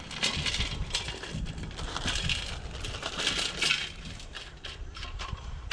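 Wood chips tipped from a plastic bag into a metal smoker tray, landing in a run of small, irregular clatters and rattles, with the bag rustling as it is shaken.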